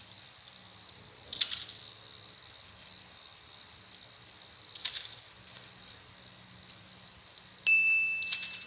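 Battery-powered Zoids Wild Liger model's small motor and gearbox whirring steadily as it walks, with a sharp mechanical click about every three and a half seconds, three in all. Near the end a sudden high electronic tone, the loudest sound, fades out over about a second.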